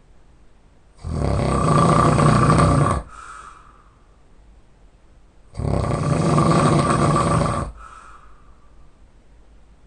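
A man snoring loudly and heavily in deep sleep: two long snores of about two seconds each, some four and a half seconds apart, each followed by a brief, fainter breath.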